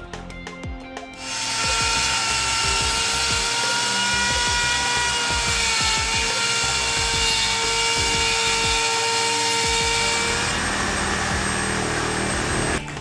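Lamello Tanga DX200 window-frame cutter, a 1700 W electric cutter, running and cutting into a wooden window frame. It starts a little over a second in with a loud, steady high whine that sags slightly under load midway, and cuts off abruptly near the end, with background music beneath.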